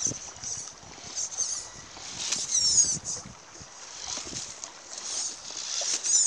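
Red Cat Rockslide RS10 RC rock crawler's electric motor and gearbox whining as it crawls over rocks, the pitch rising and falling with the throttle; it is loudest two and a half to three seconds in and again near the end. Small knocks of the tyres and chassis on the rocks come in between.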